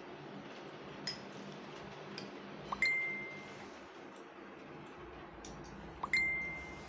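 Metal spoon clinking against a ceramic plate while spooning out filling: a few light ticks, then two sharp taps about three seconds apart, each leaving a clear ring that fades over about a second.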